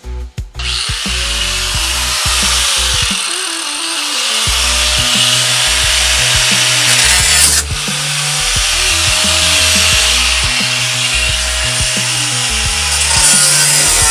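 A power tool cutting metal starts about half a second in and runs steadily, with one brief dip about halfway through. It plays under background music with a heavy bass line.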